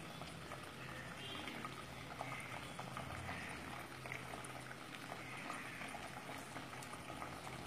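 Watery tomato chutney with dates and raisins boiling in a pot on a gas stove: a faint, steady bubbling with many small pops.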